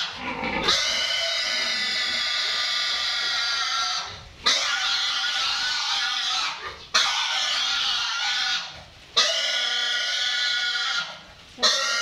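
A young boar squealing loudly in distress while held down for castration. It gives about five long, high screams of two to three seconds each, each broken off by a short gasp for breath.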